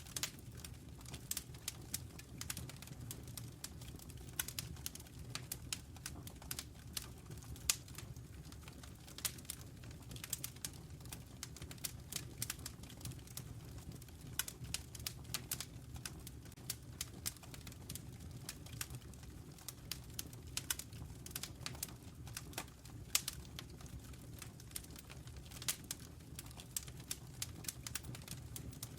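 Wood fire burning in a fireplace: dense, irregular crackles and pops over a low steady rumble of the flames.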